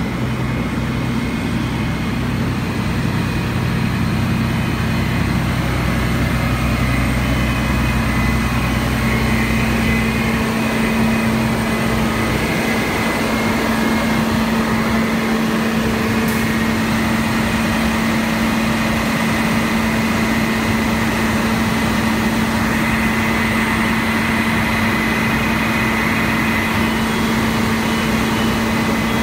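Fire engines running steadily, a loud continuous engine hum with a steady tone. A deep low rumble fades out about ten seconds in while the hum carries on.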